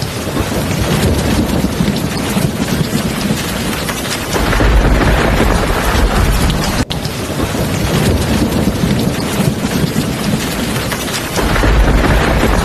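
Heavy rain falling steadily as a dense hiss. Low rolls of thunder swell up about four seconds in and again near the end.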